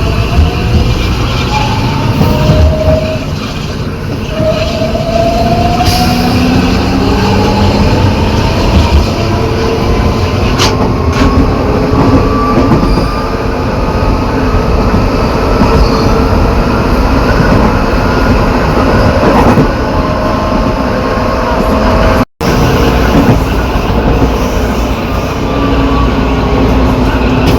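Metro car's traction motors and inverter whining in several tones that glide upward as the train accelerates, over a rumbling growl from the reduction gearbox, which the uploader calls unusual for this train. A short dropout a little over 22 seconds in marks a cut to the same car braking.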